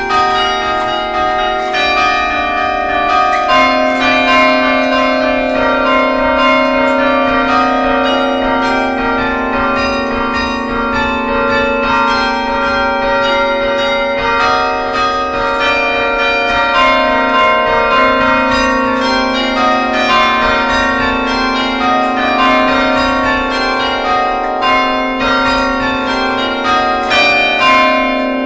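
Several church bells pealing, struck one after another in quick succession so that their tones ring over each other.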